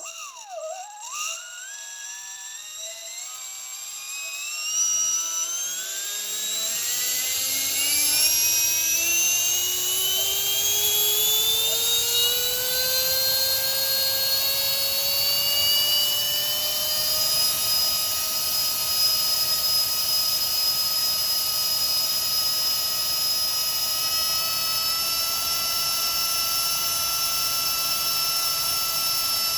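55 mm eight-blade electric ducted fan with a brushless motor spinning up from standstill: its whine rises in pitch over about eight seconds, then holds steady at high speed.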